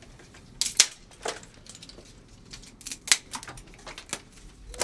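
Freshly lit wood fire crackling as it catches, with scattered irregular sharp pops, the loudest about a second and about three seconds in.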